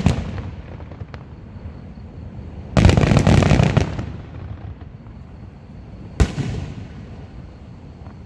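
Fireworks exploding: a dense cluster of crackling bursts about three seconds in, and a single sharp bang about six seconds in, each followed by a short echoing tail.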